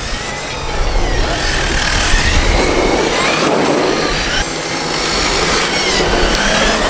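Radio-controlled cars driving fast on asphalt, their motors whining up and down in pitch as they accelerate and slow, with tyre noise from the surface as one passes close by.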